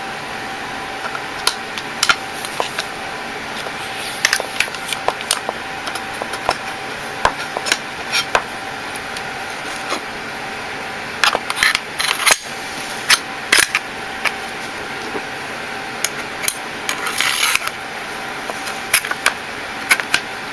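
Irregular clicks and clacks of metal parts being handled, as on a gas-blowback airsoft rifle, over a steady fan-like hum.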